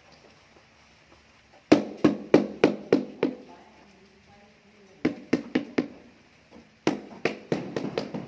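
Rubber mallet tapping a large glazed floor tile down into its mortar bed to seat and level it: three runs of sharp taps, about three a second, with short pauses between.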